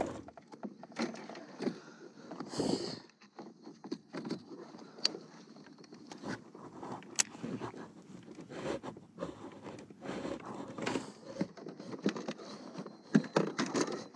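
Irregular clicks, knocks and short scrapes of fishing tackle being handled in a kayak: a baitcasting rod and reel and a swim jig being moved about and cast.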